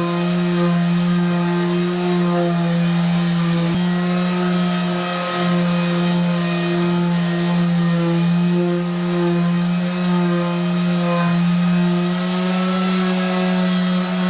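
Handheld electric power tool running at a steady speed, its motor giving a constant low hum with overtones.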